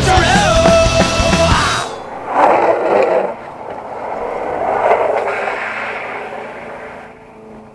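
Rock music that cuts off about two seconds in, followed by a rushing noise of longboard wheels rolling on asphalt that swells and fades twice.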